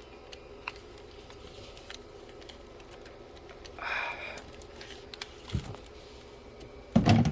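Faint handling noises over low room tone: scattered small clicks, a short rustle about four seconds in, and a soft knock, with a louder low thud near the end, as a phone cable is handled and plugged in.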